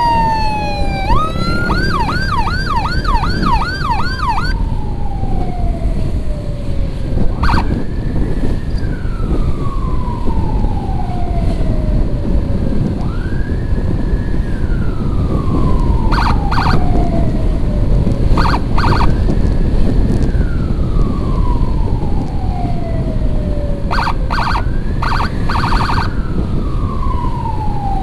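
Emergency escort siren: a fast warbling yelp in the first few seconds gives way to slow wails, each rising, holding and falling over about three seconds. Clusters of short, sharp blasts cut in around 8, 16 to 19, and 24 to 26 seconds in, over steady road and wind noise from a moving motorcycle.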